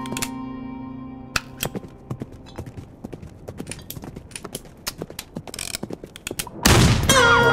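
Sound effects from the Dead or Alive 2 video slot game. Held musical tones fade over the first couple of seconds, then irregular clicks and clunks sound as the reels spin and stop. Near the end a sudden loud burst comes in, with ringing tones that slide downward and then hold.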